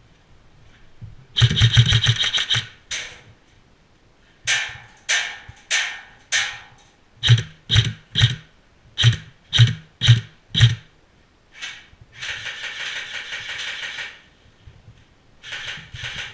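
Airsoft guns firing: a rapid full-auto burst about a second in, then a string of about a dozen single shots two or three a second, some with a low thump, and another long burst near the end.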